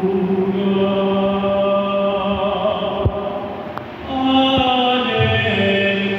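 Church choir singing a slow chant in long held notes, with a brief break between phrases about four seconds in.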